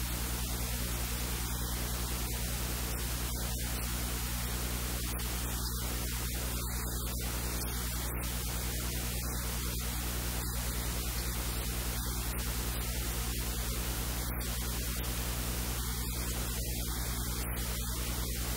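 Steady static hiss with a low electrical hum underneath, unchanging throughout; no speech comes through.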